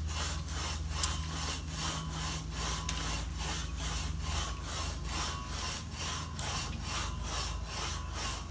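Rhythmic rasping strokes, about three a second, over a low steady rumble.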